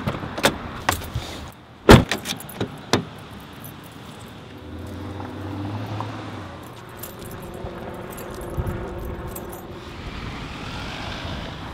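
Car keys jangling and a car door shutting with one loud thud about two seconds in, then a low steady hum for a few seconds under outdoor background noise.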